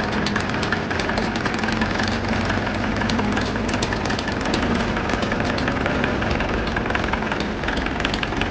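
Engine of a 1966 Massey Ferguson 165 tractor running steadily with a rapid clatter, just brought back to life after standing for 14 years.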